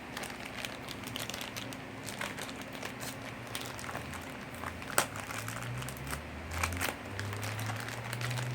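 Crinkling and rustling of plastic toy packaging being handled, with scattered light clicks and one sharper click about five seconds in.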